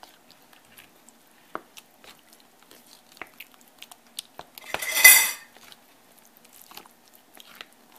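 Wooden spoon stirring wet, sticky rice in a glass mixing bowl: light knocks and scrapes against the glass, with one louder scrape about five seconds in.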